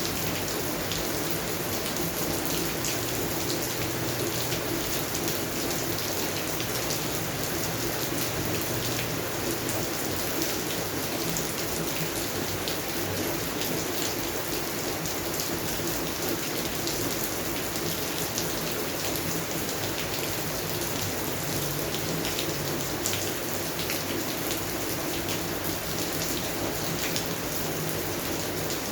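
Steady rain falling on garden plants, an even hiss with many fine drop patters throughout.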